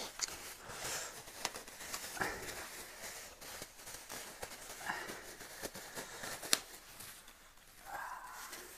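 Thin disposable plastic gloves crinkling as they are pulled on, with quiet sips and light clicks of a small metal spoon in a glass cup. One sharp click about six and a half seconds in.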